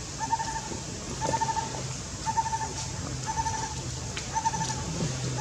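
A short trilled animal call repeated evenly about once a second, over a low steady hum.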